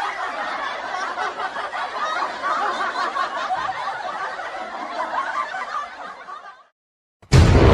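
Laughter as a meme sound effect, snickering and chuckling, fading out over the last second or so. After a brief silence, loud music cuts in suddenly near the end.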